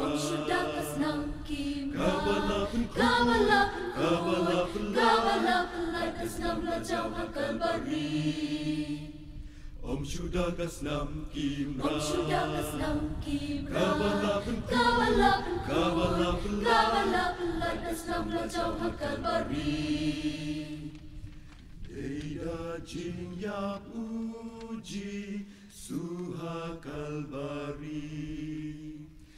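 Mixed choir of men and women singing in parts, unaccompanied. The singing comes in long phrases with short breaks about a third and two thirds of the way through, and is softer in the last third.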